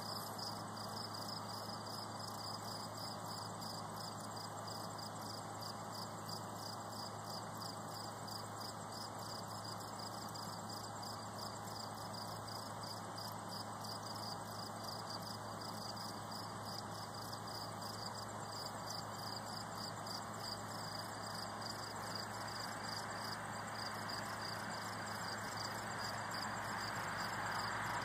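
Insects chirping in a steady, fast-pulsing chorus. A broad rushing noise swells near the end.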